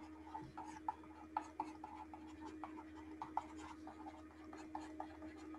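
Stylus tapping and scratching on a tablet screen as words are handwritten in digital ink: many short, irregular ticks, over a faint steady hum.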